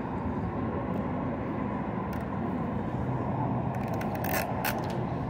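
Steady traffic noise, with a few short crackles of a plastic water bottle being handled about four seconds in.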